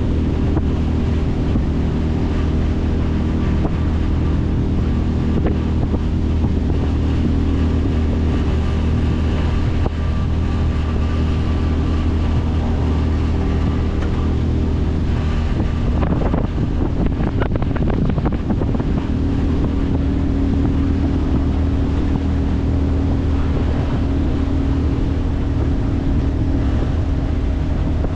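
A 25 hp Mercury four-stroke outboard motor running steadily with the boat under way, with wind on the microphone and water rushing past. A short rough stretch comes about two-thirds of the way through, and after it the engine note shifts a little.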